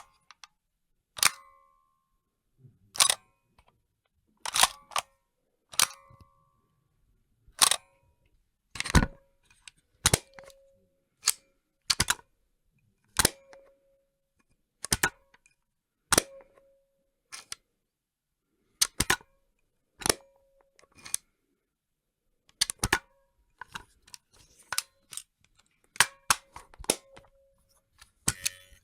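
Camera shutter clicks, one sharp click every second or two, many followed by a brief ring. Toward the end the clicks come in quick pairs and clusters.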